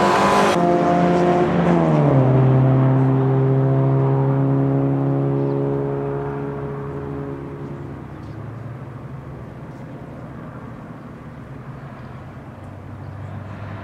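MGB GT engine running hard as the car passes close by at speed. Its pitch drops sharply about two seconds in, then the note holds steady and fades as the car drives away, leaving a faint low hum.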